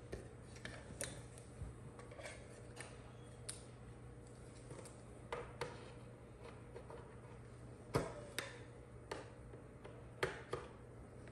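Scattered light clicks and knocks of audio cables and plugs being handled and connected to a handheld wireless audio transmitter unit and a small mixer, the loudest about eight and ten seconds in, over a faint steady hum.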